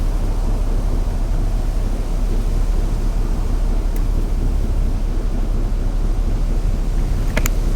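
Aircraft engines running as a loud, steady rumble, mixed with wind buffeting the microphone; a few short clicks near the end.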